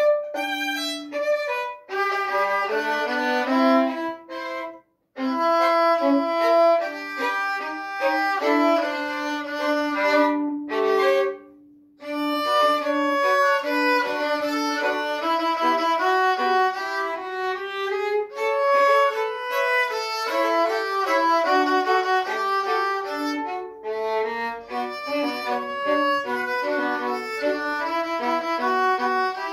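Solo violin, bowed, playing a lively ragtime fiddle tune of quick, distinct notes. The playing breaks off briefly twice, about five and twelve seconds in.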